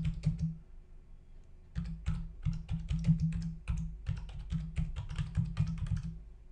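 Typing on a computer keyboard: a short run of keystrokes, a pause of about a second, then a quick, steady run of keystrokes lasting several seconds.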